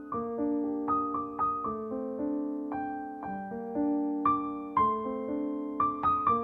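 Background piano music: single notes and chords struck at an unhurried pace, each ringing and fading.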